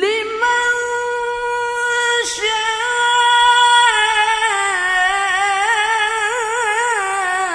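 A male qari chanting Quran recitation (tilawah) that starts suddenly out of silence. He holds one long high note, breaks briefly a little over two seconds in, then slides lower into a wavering, ornamented melisma on a drawn-out vowel.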